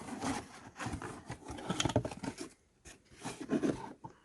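Cardboard Funko Pop box and its packaging being handled and opened: irregular rustling, rubbing and scraping with small clicks, pausing briefly about two and a half seconds in.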